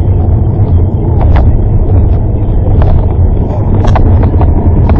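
Car driving at speed, heard from inside the cabin through a dashcam microphone: a steady low rumble of engine and road noise, with a few light clicks.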